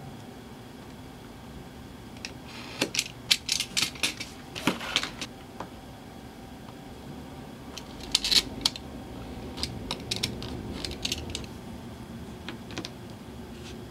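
Metal coins clinking and clicking as they are handled and set down on a plastic cutting mat and the leather strap. The clicks come in quick clusters, one a few seconds in and another about eight seconds in.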